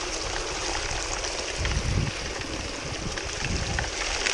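Water running steadily through a small pump-fed gold-washing rig, with a faint steady hum underneath. Low rumbles of wind on the microphone come a little before the middle and again most of the way through.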